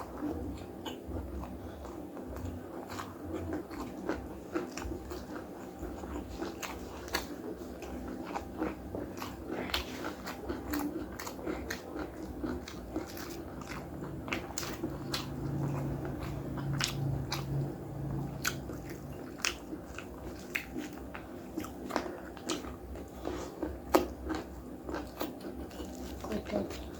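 Close-up chewing and crunching of a mouthful of nasi Padang, with many irregular sharp crunches and mouth clicks.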